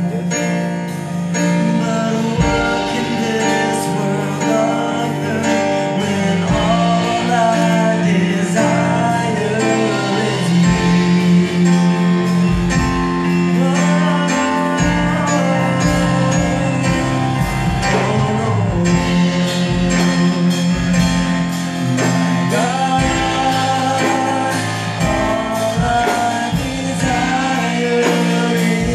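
Worship song: a singer over a band with guitar and bass.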